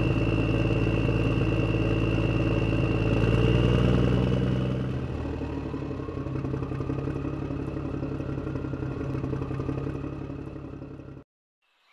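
Engine sound running steadily, swelling about four seconds in, then settling into a lower, rougher run before cutting off abruptly near the end.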